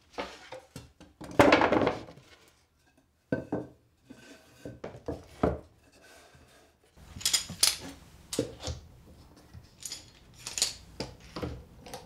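Wooden boards handled on a wooden workbench. An MDF panel slides and is set down with a scrape about a second in, the loudest sound, followed by several knocks as panel and boards are laid on the battens. From about halfway there is a run of sharp clicks as metal hold-down clamps are set and tightened on the panel.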